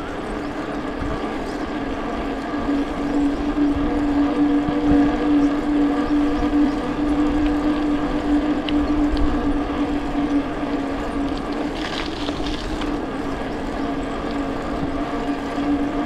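Steady hum and low rumble of a mountain bike being ridden on the road, the pitch holding constant at a steady riding speed. A brief higher-pitched sound comes about twelve seconds in.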